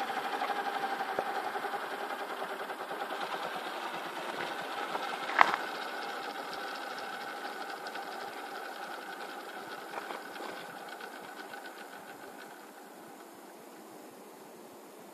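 Align T-Rex 550 DFC electric model helicopter's rotor and drivetrain spinning down after landing: a mechanical whine that slowly fades and sinks in pitch, while the rotor's regular ticking slows. A sharp click about five seconds in and a smaller one about ten seconds in.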